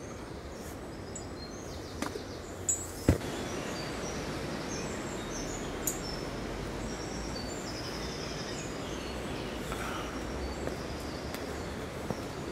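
Metal rings of a tree-climbing friction saver knocking as it is hauled up against a branch: a few sharp knocks about two to three seconds in, the last the loudest. After that a steady hiss as the climbing rope is pulled up through the ring, with small birds chirping.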